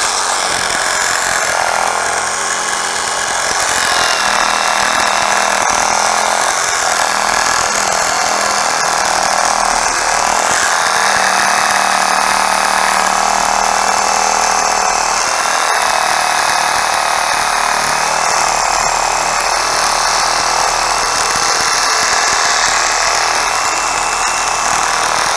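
Ryobi compact one-handed cordless reciprocating saw cutting steadily through a limb about 3 inches thick with a pruning blade, run under heavy pressure. Its motor keeps going without bogging down.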